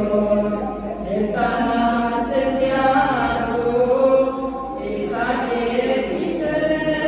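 Ethiopian Orthodox women's choir singing an Amharic hymn (mezmur) to Mary in unison, unaccompanied. Sung phrases start afresh about a second in and again about five seconds in.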